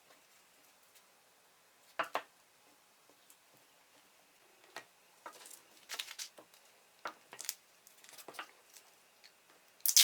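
Painter's tape being pulled and pressed onto a glued wooden miter joint: scattered small clicks and crinkles of tape and wood being handled, with one short sharp rip at the very end.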